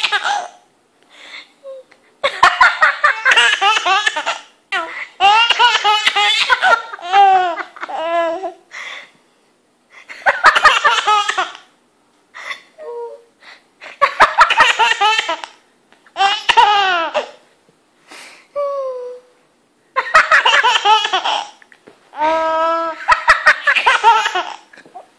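A baby laughing hard in about eight loud bouts of belly laughter, each a second or two long, with short pauses and brief small sounds between them.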